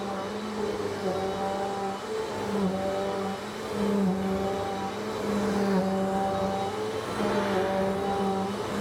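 Vacuum cleaner motor running steadily, its pitch dipping briefly every second or two.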